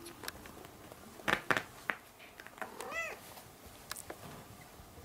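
Kittens meowing: a couple of short calls about a second and a half in, then a longer meow that rises and falls about three seconds in, with light taps and scratches between.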